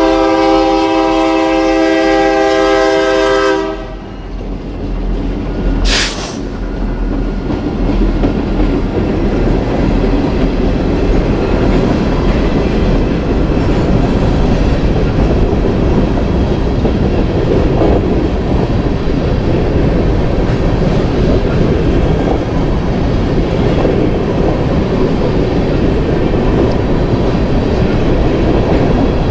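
BNSF diesel freight locomotive's air chord horn sounding one long blast that stops about four seconds in. A short sharp burst of noise follows about two seconds later, then the train runs through the crossing with a steady rumble and the clatter of wheels on rail.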